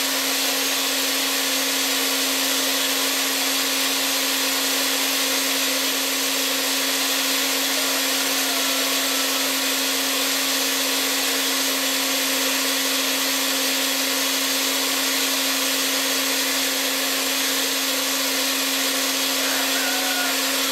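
Countertop blender running continuously, grinding whole wheat grain into wholemeal flour in its glass jug. The motor gives a steady whir with a constant hum underneath, and the level stays even throughout.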